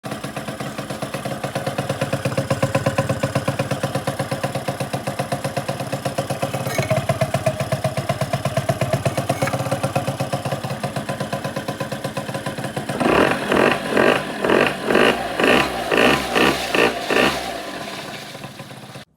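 Suzuki Street Magic 50's small two-stroke single-cylinder engine running through a homemade silencer on its stock expansion chamber. It idles steadily with a fast pulsing beat, then about two-thirds through the throttle is blipped about nine times in quick succession, roughly twice a second, before settling back.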